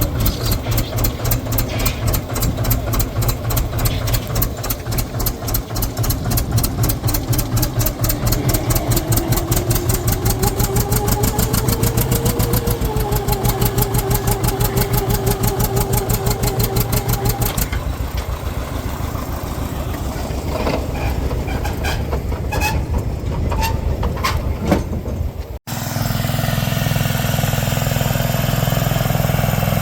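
An engine running at a steady, even firing beat. Near the end it cuts suddenly to another engine running steadily.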